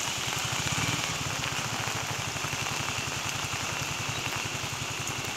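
A small motor scooter's engine idling close by with a fast, even putter, under steady rain.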